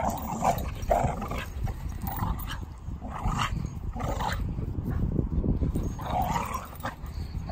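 Dogs play-fighting, a Doberman with Staffordshire bull terriers, giving a string of short growls and barks. A gap falls about five seconds in, then a couple more.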